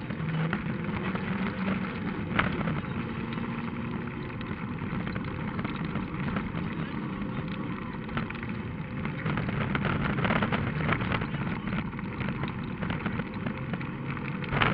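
Rally car's engine running hard along a gravel stage, heard from inside the cabin, its pitch rising and falling with the throttle over a steady rush of tyres and flying grit. Sharp knocks of stones striking the car about two and a half seconds in and again around ten seconds in.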